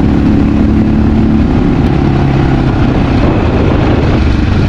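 Honda XR650L's single-cylinder four-stroke engine running while the bike is ridden, with heavy wind buffeting the microphone. The engine's note drops lower a couple of seconds in.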